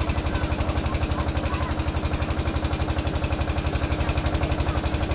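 An engine running steadily with a fast, even pulse.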